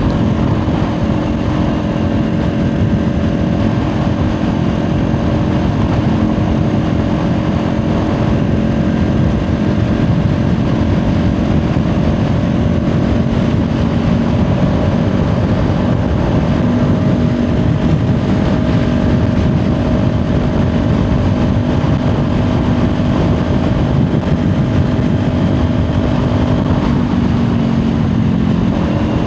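Kawasaki Ninja 400's parallel-twin engine running at a steady highway cruise, holding an even note, with heavy wind rush over the microphone.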